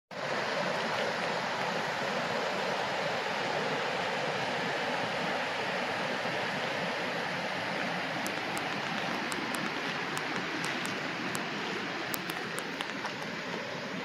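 Mountain creek rushing over rocks: a steady, even rush of water that eases slightly near the end.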